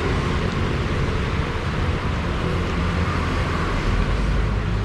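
Steady vehicle noise: an even low rumble with a hiss over it and no separate events.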